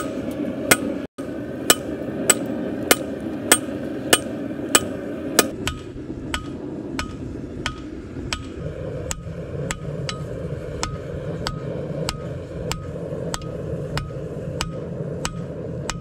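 Hand hammer striking a glowing steel billet on an anvil in a steady rhythm, about one and a half to two blows a second, each with a short metallic ring. The blows are forge welding the layered Damascus billet, an attempt to fuse a layer separation after fresh borax flux. The blows grow softer about a third of the way in, over a steady background rush.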